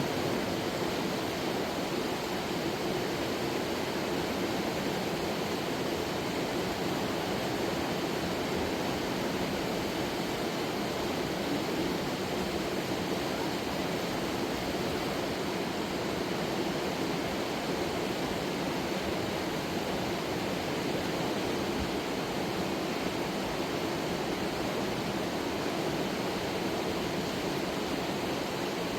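Fast-flowing river rushing, a steady, unbroken noise of water.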